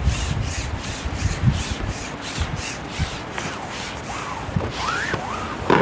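Fishing pole being shipped back out over the water, the pole sections sliding and rubbing in a quick rhythm of about three strokes a second, with wind rumbling on the microphone.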